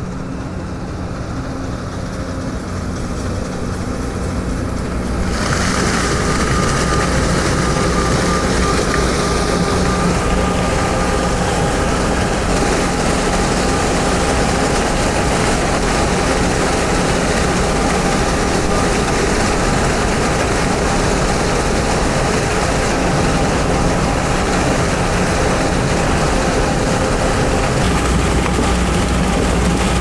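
John Deere T670i tracked combine harvester running steadily while harvesting grain corn: a low engine hum with a steady high whine from the machinery. The sound grows louder over the first few seconds and turns suddenly closer and brighter about five seconds in.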